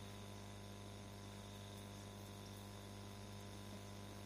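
Faint, steady low electrical hum with light hiss in the recording.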